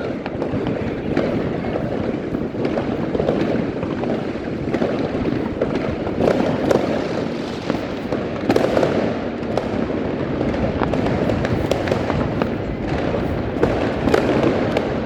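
Many fireworks and firecrackers going off at once: a continuous dense barrage of bangs and crackling, with single sharp cracks standing out again and again.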